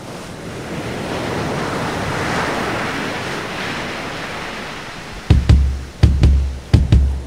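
Ocean surf washing in, swelling to a peak after a couple of seconds and then fading. About five seconds in, music starts with a series of heavy, deep drum hits.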